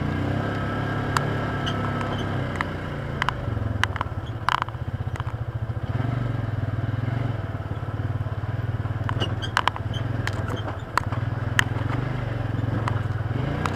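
Polaris Ranger side-by-side's engine running on a trail, its note rising and falling with the throttle. Frequent sharp clicks and knocks sound over it throughout.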